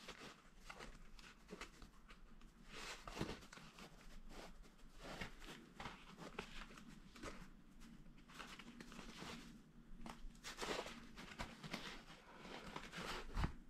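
Stiff beeswax-waxed cotton fabric being handled and folded, giving faint, irregular crinkling and rustling.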